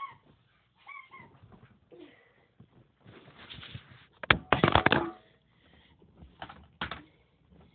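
Puppy whimpering in short high whines, with a loud clatter of knocks about four seconds in and a few more knocks near the end.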